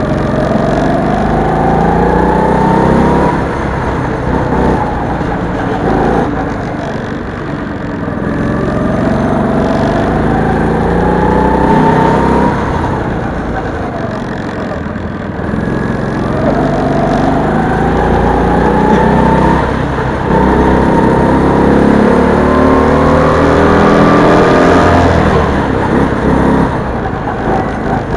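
Go-kart engine running under load around a track: its pitch climbs over a few seconds as the kart accelerates, then falls back for the corners, about four times.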